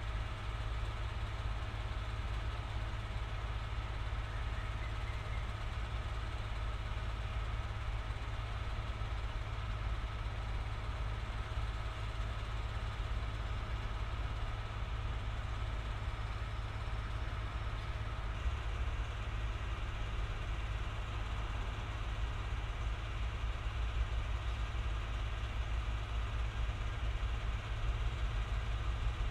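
Diesel train engine idling steadily at the station: a low, even rumble.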